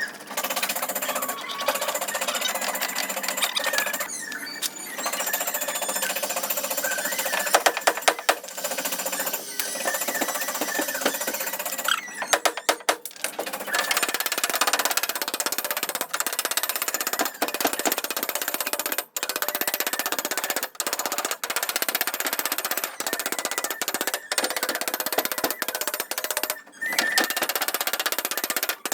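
Power tool rattling with rapid impacts in long runs, broken by short pauses every few seconds.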